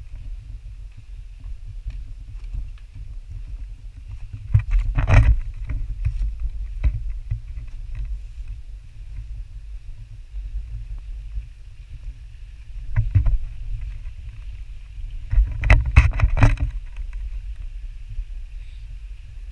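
Low, steady rumble of walking and handling noise on a GoPro's microphone as it is carried on a pole along a rocky trail. Louder knocks and scrapes come about five seconds in and again around sixteen seconds in.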